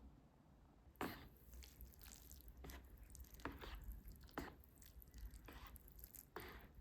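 A handful of short, soft scuffs or rustles from something being handled, about one a second at irregular spacing, over quiet room tone.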